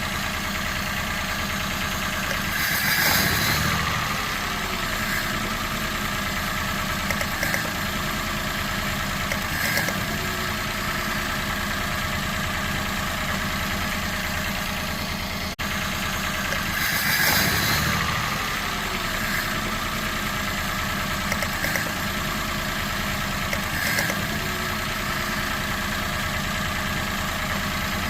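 Citroen C1 1.0's three-cylinder petrol engine idling with a misfire. Twice, about 3 and 17 seconds in, it revs up briefly and falls back to idle.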